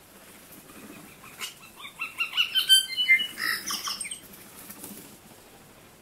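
Juvenile tui calling: a quick jumble of short, clear notes at different pitches mixed with clicks, loudest in the middle and fading out about five seconds in.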